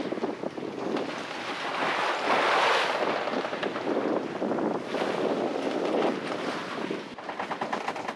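Wind buffeting the microphone over the rush of sea and waves around a sailboat under way, swelling louder and softer, loudest about two to three seconds in.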